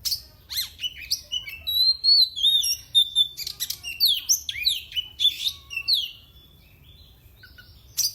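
Oriental magpie-robin (kacer) singing: a rapid, varied string of whistles, sharp clicks and falling sweeps, breaking off about six seconds in and starting again at the very end.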